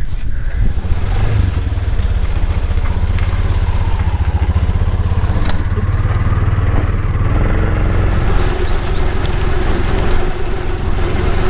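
Tuk-tuk (auto-rickshaw) engine running with a steady low rumble, with a few short bird chirps about eight seconds in.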